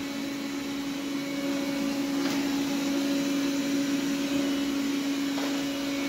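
Roborock S4 robot vacuum running at full power on tile: a steady motor hum over an even fan hiss.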